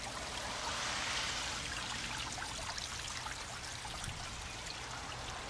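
Water running and trickling steadily into a small garden pond, slightly louder about a second in, with faint scattered ticks of rain.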